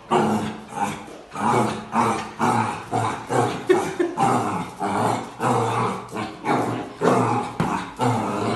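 Puppy barking and growling in a rapid string of short barks, about two a second, at its own reflection in a mirror.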